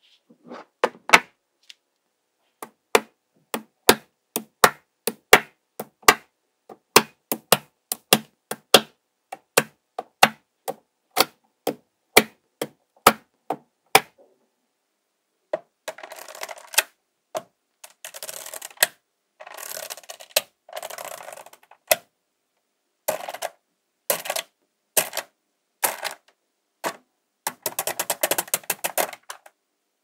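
Small magnetic balls clicking sharply as they snap onto each other, two or three clicks a second for the first half. From about halfway on come short runs of fast, dense clattering as rows of balls are pressed and settled into place.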